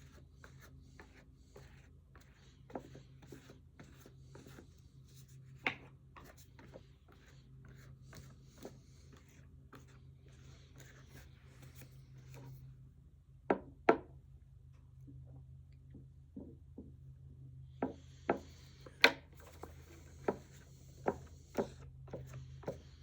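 A card scraping and rubbing diamond paste across a leather strop, with scattered clicks and taps, sharper ones about fourteen seconds in and a run of them near the end. A low steady hum runs underneath.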